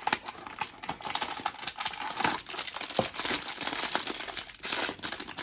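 Blind-box packaging crinkling and rustling in irregular crackles as it is handled and opened.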